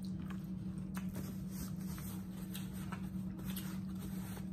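Faint wet clicks and smacks of people chewing food, scattered irregularly over a steady low hum.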